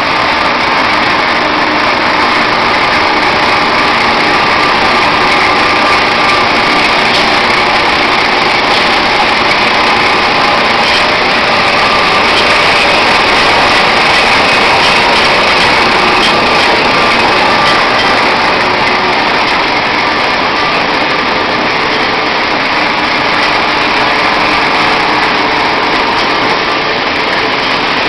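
Wet-type peanut peeling machine running steadily: a continuous mechanical whir from its motor and belt-driven peeling rollers as soaked peanuts feed through.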